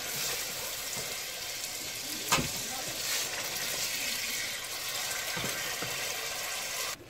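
Butter-and-sugar syrup with almonds and sultanas sizzling and bubbling steadily in a metal pot while a wooden spatula stirs it. There is one sharp knock, the spatula striking the pot, about two seconds in. The sizzling cuts off suddenly near the end.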